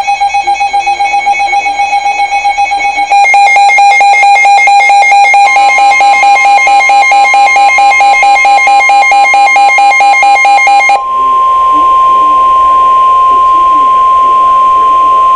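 Weather radio alert: the receiver's pulsing alarm beeps, about three a second, overlaid about halfway by the steady 1050 Hz NOAA warning alarm tone. That tone continues alone for the last few seconds and cuts off sharply, signalling a severe thunderstorm warning.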